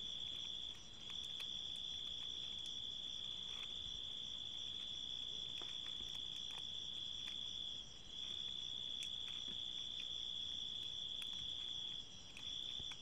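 A cricket trilling steadily and high-pitched, breaking off briefly three times. Faint light clicks of plastic strips being handled sound under it.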